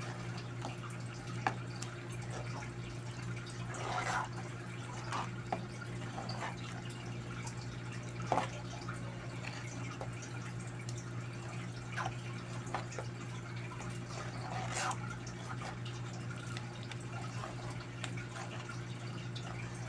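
A metal spoon stirring thick chocolate rice porridge in a pot: wet, sloppy liquid sounds with scattered clicks and scrapes of the spoon against the pan, over a steady low hum.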